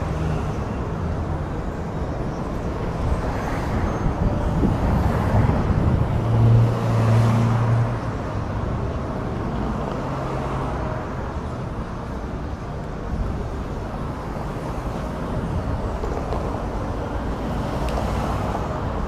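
Road traffic: vehicle engines and tyres running steadily, with one engine's low hum loudest for a second or two about six and a half seconds in.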